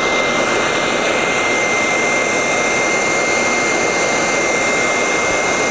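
Corded hot air rework station blowing, warming up: a steady rush of air with a thin, steady high whine through it.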